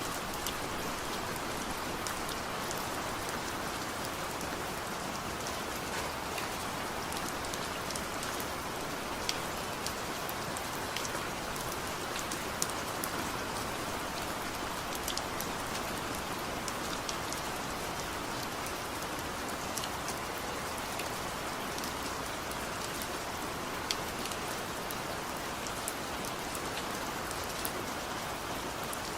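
Steady gentle rain falling, with scattered sharp drop ticks against a hard surface over an even hiss.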